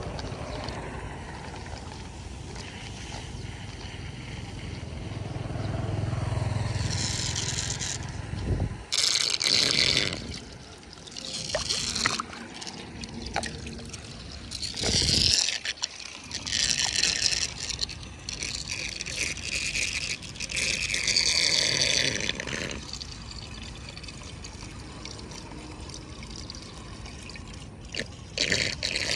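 Shallow floodwater sloshing and splashing as a bare foot stirs it over a clogged storm drain, with several louder bursts of splashing between about nine and twenty-two seconds in.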